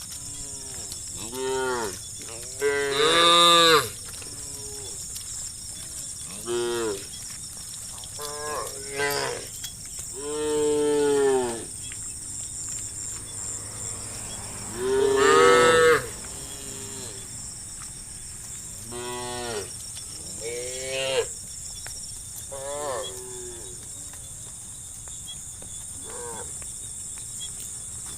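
A herd of cattle mooing, one call after another from different animals, each call bending up and then down in pitch. The longest and loudest moos come about three seconds in, around ten seconds, and around fifteen seconds.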